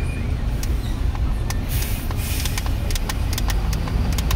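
Steady low rumble of vehicle engines heard from inside a car in slow traffic behind a container truck. There is a short hiss about two seconds in and a scatter of small clicks.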